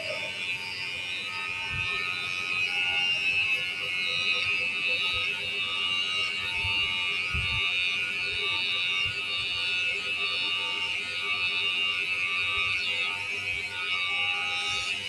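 Kemei electric hair clipper running continuously with a steady, high-pitched buzz while it is tested for cutting sharpness.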